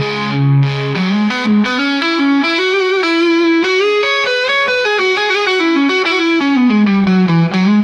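AI-generated hard-rock music: a distorted electric guitar plays a solo line that climbs in pitch from about a second in, holds high through the middle, and steps back down near the end.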